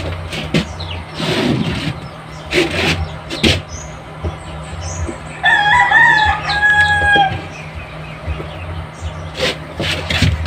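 A rooster crows once, about five seconds in: a call of a few broken notes ending in one held note, about two seconds long and the loudest thing here. Around it are scattered knocks of wood and trays being handled, over a steady low hum.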